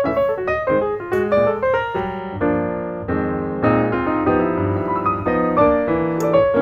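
Background piano music: a melody of quick notes over sustained chords.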